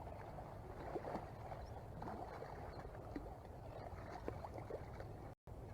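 River water lapping and gurgling at the bank over a low, steady rumble, with many small splashy ticks. The sound cuts out for an instant near the end.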